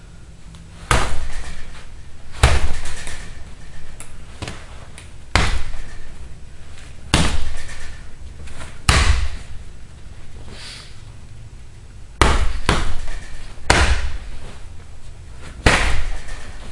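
Fists striking a hanging heavy punching bag: about a dozen hard hits at an uneven pace, some coming in quick pairs, each with a short echo.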